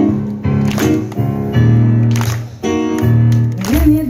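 Live band playing an instrumental passage: keyboard chords over electric bass, with a drum hit about every second and a half. A woman's singing voice comes in near the end.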